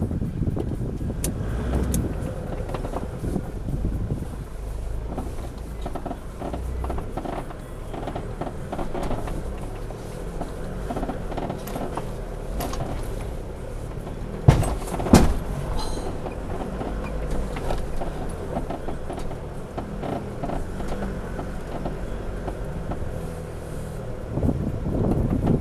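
A four-wheel drive's engine running at low revs as it crawls up a rough, rocky track, with scattered knocks and rattles from the vehicle. Two sharp knocks about halfway through, less than a second apart, are the loudest sounds.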